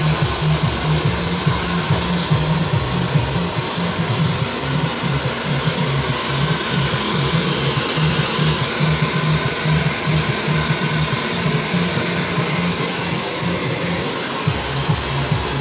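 Handheld hair dryer blowing steadily while hair is blow-dried.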